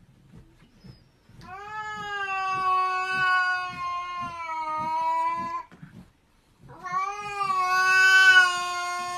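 A cat yowling: two long, drawn-out, steady-pitched calls of about four and three seconds. The second gets loudest near its end.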